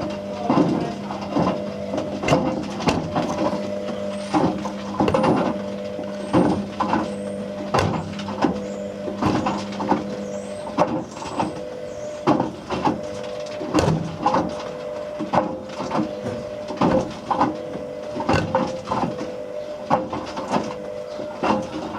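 Whirlpool WWDC 7210/1 washing machine drum turning with a steady motor hum, while hard objects inside knock and clatter irregularly as they tumble. A lower hum drops out about halfway through.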